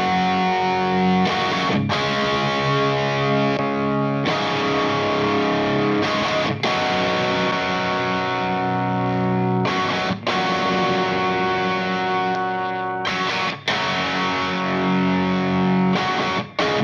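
Electric guitar played through a Valco Bloodbuzz drive/fuzz pedal, with distorted chords struck and left to ring, a new chord every few seconds.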